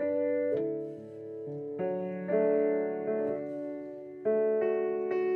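Piano playing slow chords, each struck and left to ring, with a new chord about every second.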